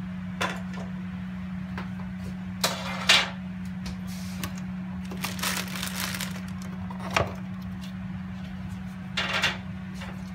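Clear plastic food-dehydrator trays and their mats being handled on a benchtop: a series of sharp plastic clicks and knocks with short rustles, the loudest click about three seconds in. A steady low hum runs underneath.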